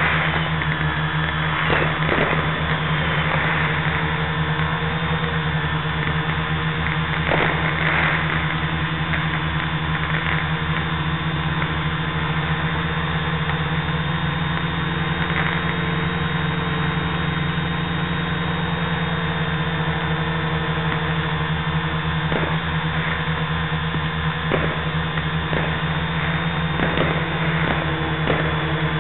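Quadcopter motors and propellers droning steadily, heard through the drone's onboard FPV camera link, with a few short pops over the hum.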